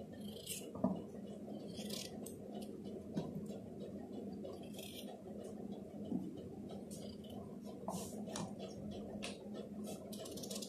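Kitchen knife slicing through raw potato held in the hand: irregular faint cuts and scrapes every second or two, over a steady low hum.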